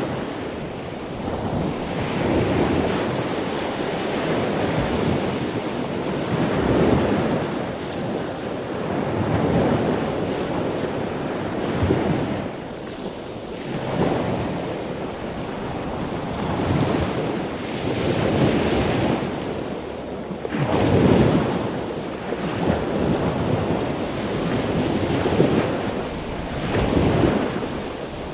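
Waves washing onto a shore in repeated swells every few seconds, with wind buffeting the microphone.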